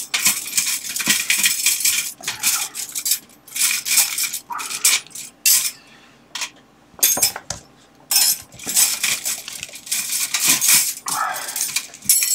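Loose metal pegboard hooks jangling and clinking as they are handled and rummaged through, in clusters of sharp metallic clicks with a short lull about six seconds in.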